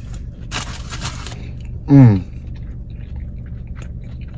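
A man chewing a mouthful of bagel sandwich, with small wet clicks and a loud, short "mmm" of enjoyment falling in pitch about two seconds in, over a steady low hum inside the car.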